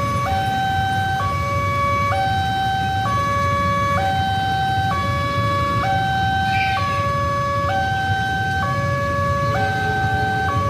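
Railway level-crossing warning alarm sounding its electronic two-tone signal, switching between a high and a low tone about once a second, as the crossing is closed for an approaching train. Underneath it runs the low rumble of waiting motorcycles and cars idling.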